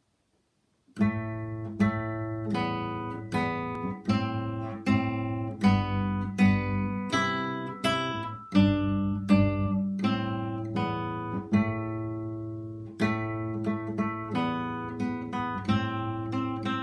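Classical guitar playing solo a Renaissance dance tune: a plucked melody over held bass notes and chords, starting about a second in.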